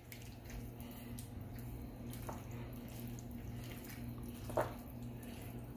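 Large metal serving spoon stirring beans, bacon and onions in their liquid in a disposable aluminium foil pan: soft wet squishing with light scrapes, and one louder short sound about four and a half seconds in.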